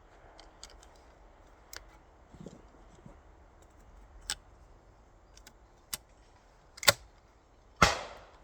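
A few sharp, scattered clicks and knocks over a quiet background, the loudest two close together near the end, the last with a short ringing tail.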